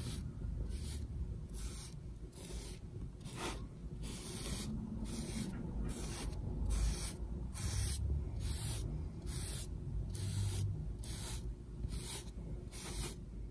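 A flat paintbrush sweeping glossy varnish back and forth across an acrylic painting, a soft bristle rasp at about two strokes a second.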